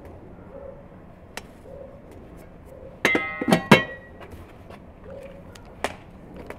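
A metal lid set down onto a metal flour bucket about three seconds in: a clatter of a few quick clanks with a short metallic ring. A single sharp click follows near the end.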